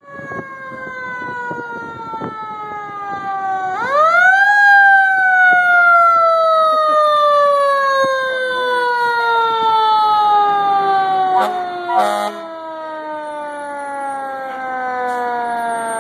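Fire engine's mechanical siren winding down in a long slow falling wail, spun back up quickly once about four seconds in, then coasting down again. A short horn blast sounds about twelve seconds in.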